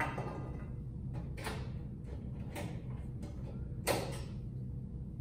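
Hands handling a gutted fluorescent troffer fixture and its parts: a few light knocks and scrapes, the loudest about four seconds in, over a low steady hum.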